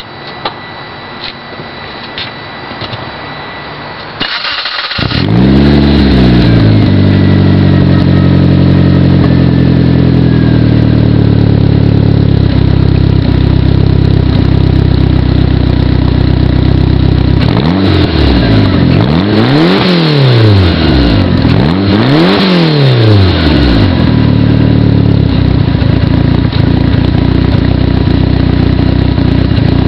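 Turbocharged 4G63 inline-four of a 1992 AWD DSM through a Megan Racing aftermarket exhaust. About four seconds in it cranks briefly, catches and flares up, then settles to a steady idle. It is revved twice around twenty seconds in, each rev rising and falling, and then idles again.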